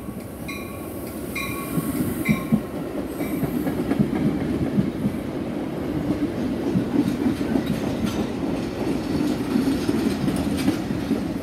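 Metra bilevel commuter train passing close along a station platform: a steady rumble of steel wheels on rail with clickety-clack from the wheels over rail joints, louder after about a second and a half. A bell dings repeatedly at the start and fades out within the first few seconds.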